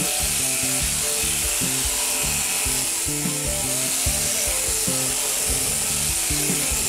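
Background music over the steady buzz and hiss of a sheep-shearing handpiece cutting through a fleece.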